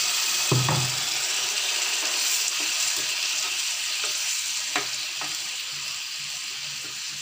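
Tomato-onion curry gravy, just thinned with water, sizzling and bubbling in a pan while a steel spatula stirs it. A few knocks of the spatula against the pan stand out, the loudest about half a second in.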